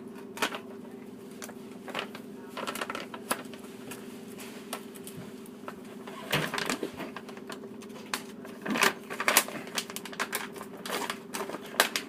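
Irregular clicks and clinks of kitchen utensils and dishes being handled during baking prep, with a few heavier knocks about six and nine seconds in, over a steady low hum.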